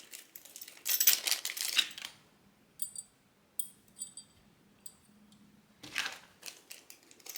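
Rustling packaging and light metallic clinks of a CPU cooler's Intel mounting hardware (backplate and screws) being unpacked and handled, in several short bursts. The clinks are a run of small, sharp ticks in the middle.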